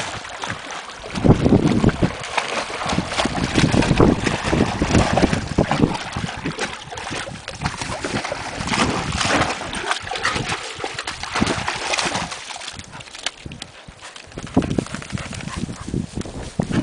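Two dogs, a springer spaniel and a Jack Russell terrier, splashing and paddling through a shallow pool of bog water, with irregular sloshing and splashes. Wind buffets the microphone at the same time.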